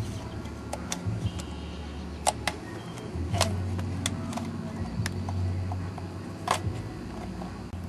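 Scissors cutting a plastic juice bottle: irregular sharp snips and clicks, about ten of them, over a steady low hum.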